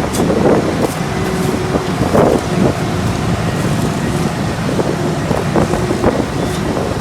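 Diesel engines of asphalt paving machinery (paver and roller) running steadily, with wind buffeting the microphone.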